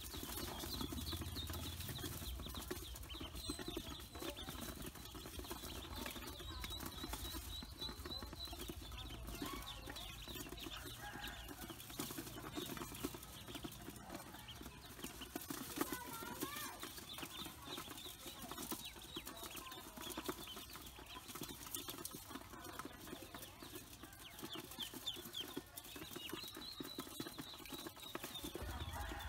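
A group of black and yellow ducklings peeping, many short high calls overlapping in a steady stream.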